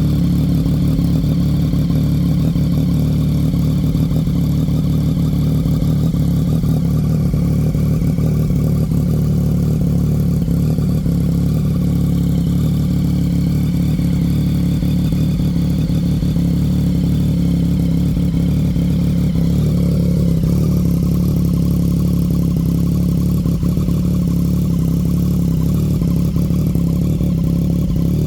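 Yamaha MT-09's three-cylinder engine idling steadily, with a deep, even exhaust note.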